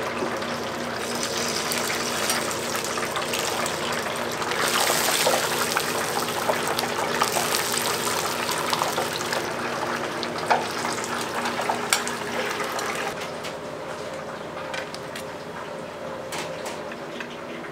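Hot frying oil in a commercial pressure fryer sizzling and bubbling as a whole fried chicken is lifted out, over a steady machine hum. The hiss swells for several seconds partway through, then dies down, with a couple of sharp metallic clicks.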